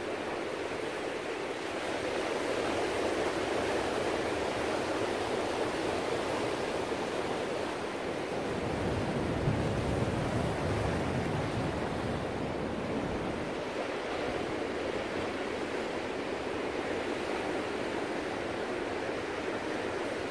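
Ocean surf: a steady rush of waves breaking and foam washing in, swelling louder and deeper about halfway through.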